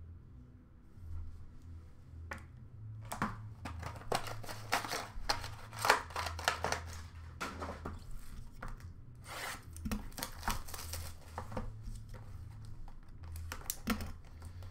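Cardboard trading-card box being torn open and its packaging crinkled and ripped: a busy run of short tearing and crinkling noises starting about three seconds in, over a steady low hum.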